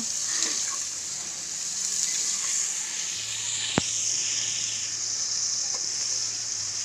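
Food sizzling as it sautés in hot oil in a pot over a wood fire, a steady high hiss. A single sharp click comes a little under four seconds in.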